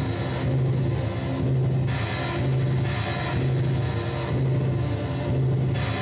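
Live music from an electric guitar and a keyboard synthesizer, with a low droning note that swells about once a second in a steady rhythm.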